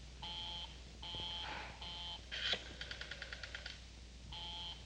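Telephone busy signal: a steady buzzy tone pulsing on and off about once a second. Partway through it is interrupted by a sharp click and a quick run of about ten clicks, then the on-off tone comes back.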